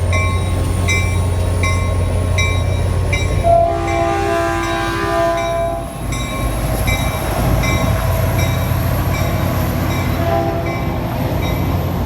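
Caltrain commuter train running past with a steady low rumble, its horn sounding one long blast about three and a half seconds in and a shorter one near the end. A high ding repeats a little more than once a second throughout.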